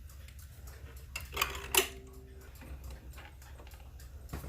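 Centurion 35-day spring-driven wall clock ticking steadily over a low hum. About a second and a half in come two sharp metallic clinks, the second leaving a brief ring.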